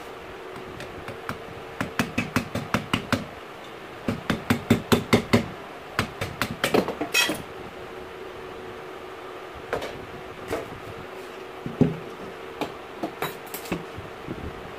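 Quick runs of metal-on-metal hammer blows, about six a second, in three bursts, striking a tool set in the eye of a rusted hammer head that is clamped in a bench vise. A few scattered metal clinks follow as the head is handled, over a steady low hum.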